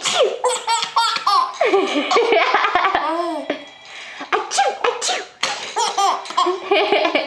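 Nine-month-old baby laughing hard in repeated bursts of belly laughter, with a short pause about halfway through.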